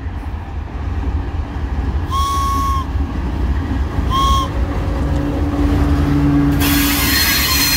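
Toy train whistle blown twice, a steady toot about two seconds in and a shorter one about four seconds in, over the low rumble of diesel freight locomotives pulling past close by. About seven seconds in, a loud hiss of wheels on rails takes over as the train passes.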